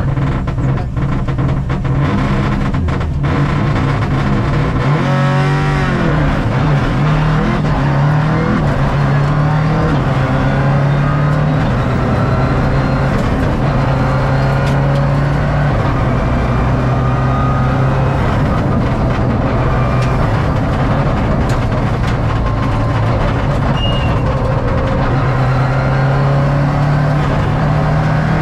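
Subaru Impreza R4 rally car's turbocharged flat-four engine pulling hard up through the gears, heard from inside the cockpit. The revs climb and drop back again and again as the driver shifts from first towards fifth, over a steady road roar from the tyres.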